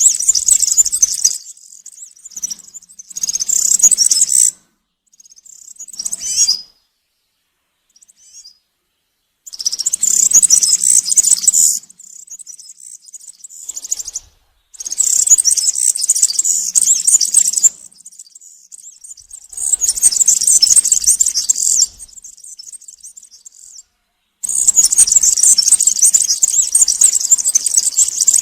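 European serin singing: a run of high, rapid song phrases, each lasting two to three seconds, with short pauses between them.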